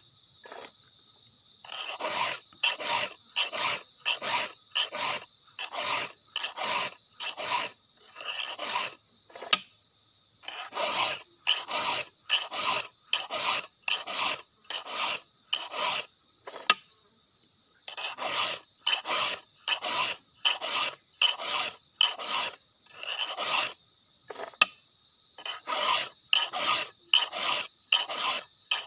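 A file rasping across the cutter teeth of a chainsaw chain, sharpening it in steady back-and-forth strokes about two a second, in runs broken by short pauses. Crickets or other insects keep up a steady high hum behind it.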